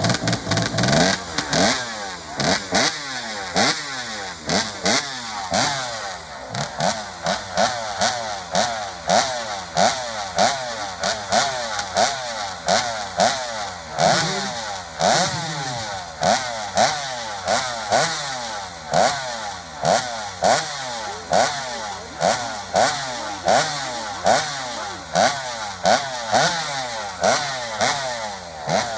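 Chainsaw engine running hard, its revs surging up and dropping back over and over, with a loud peak about once a second.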